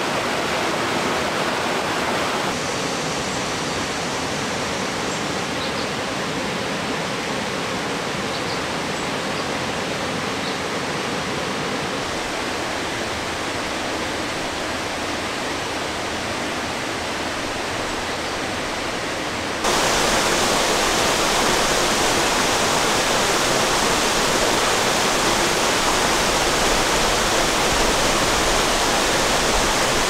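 Mountain stream water rushing over rocks, a steady even rush. The level drops a little a couple of seconds in and jumps up abruptly about two-thirds of the way through.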